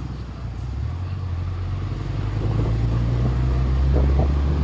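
Engine of the open-sided vehicle being ridden in, running with a steady low drone that drops in pitch about a second in and then grows louder as it drives on.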